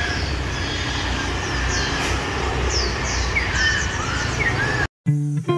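Short, quick chirps from caged white-eyes over the steady rumble of street traffic. Near the end the sound cuts off and guitar music begins.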